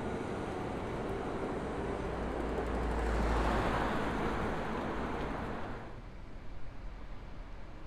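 A Keihan Keishin Line train running along the street amid road traffic, its noise swelling about halfway through and then dropping away suddenly a little before the end.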